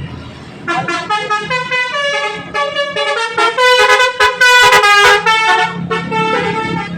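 Bus telolet horn, a multi-tone horn playing a quick melody of short stepped notes. It starts about a second in and is loudest in the middle, over the low hum of the bus engine.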